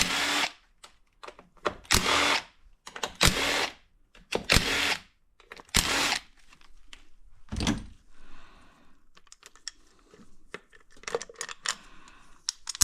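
Handheld power drill run in about six short bursts, roughly a second and a half apart, each holding a steady motor pitch. These are followed by light scattered clicks and clatter of small parts being handled.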